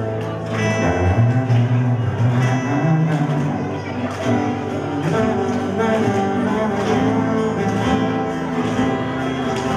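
An ensemble of acoustic and nylon-string classical guitars playing chords together in a steady rhythm.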